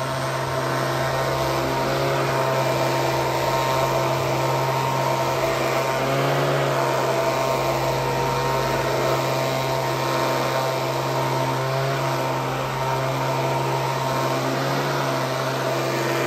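Leaf blower running steadily, a constant hum over a rush of air, wavering slightly in pitch about six seconds in.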